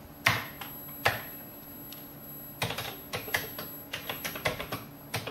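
Keystrokes on a Commodore 64 keyboard: a few separate key presses, then a quicker run of keys near the end.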